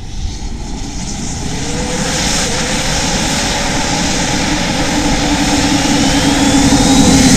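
Scratch-built turboshaft jet engine of a go-kart running under power, a loud jet roar that grows steadily louder as the kart approaches. A faint whine rises in pitch over the last couple of seconds.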